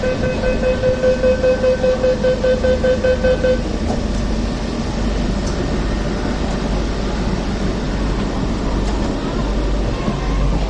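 Peak Tram warning buzzer sounding in quick pulses, about five a second, for a few seconds, then cutting off, over a steady low hum.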